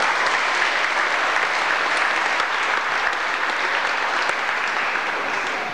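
Audience clapping steadily, easing off a little near the end.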